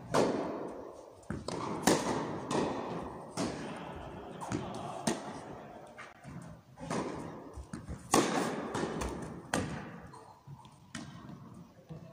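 Tennis rally on an indoor carpet court: rackets striking the ball and the ball bouncing, a sharp knock every second or so at an uneven pace, each one echoing in the hall.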